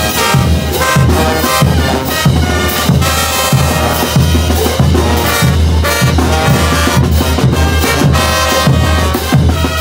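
Bolivian brass band playing live on the march: trumpets, trombones and sousaphones over a steady beat of bass drum and clashing hand cymbals.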